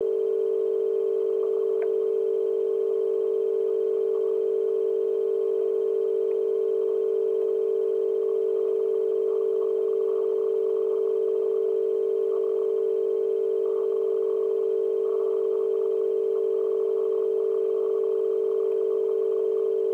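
A loud, steady electronic tone at one unchanging pitch, with fainter overtones above it.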